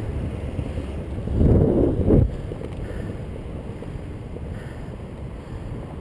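Wind rushing over a bicycle-mounted camera's microphone while riding, a steady low rumble. About a second and a half in, a louder gust lasts under a second and cuts off sharply.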